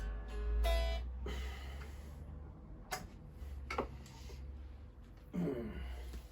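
Electric guitar played through an amplifier: a plucked note rings in the first second, followed by a few sharp clicks and a short bending sound near the end, over a steady low amp hum.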